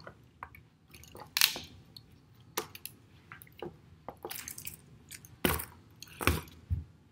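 Scattered clicks, rattles and knocks from the plastic parts of a Lego dragon model as it is swung about by hand, with a couple of duller thumps near the end as it is put down on a wooden table.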